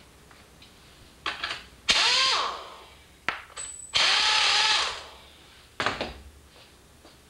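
Air-powered hand tool on a hose, run in two short bursts on the seat-back hinge bolts, the second about a second long, each ending in a falling spin-down. A few short knocks of the tool being handled come between the bursts.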